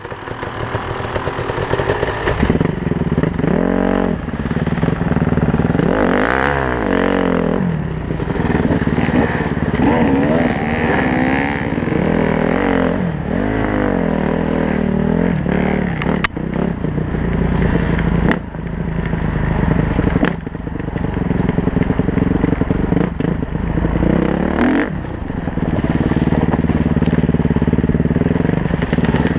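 Honda CRF four-stroke dirt bike engine heard close up from on the bike, revving up and down on a tight trail. The pitch rises and falls every few seconds, with a couple of brief throttle cuts about two-thirds of the way through.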